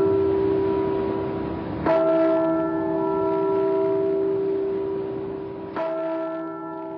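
A large bell tolling slowly, struck twice about four seconds apart, each stroke ringing on and fading away. It is a memorial toll.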